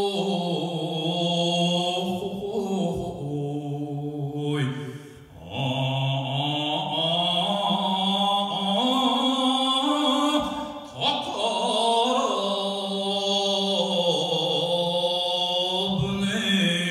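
A man singing sumo jinku solo and unaccompanied, drawing out long held notes with slow bends and ornaments in pitch, and breaking off briefly for breath about five seconds in and again about ten seconds in.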